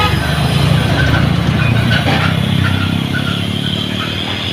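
Traffic passing close on a steep uphill road: a heavy truck's diesel engine running under load as it climbs, with a car going by. A short horn toot sounds right at the start.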